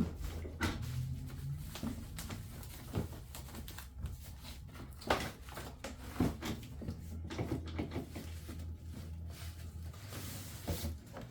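Scattered knocks, clunks and rustles of packaging and tool parts being handled and set down during unboxing, over a low steady background hum.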